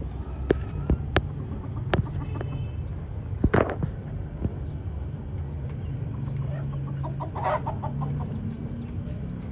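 Chickens clucking, with a quick run of clucks about seven and a half seconds in. A few sharp clicks sound in the first two seconds, over a low steady hum.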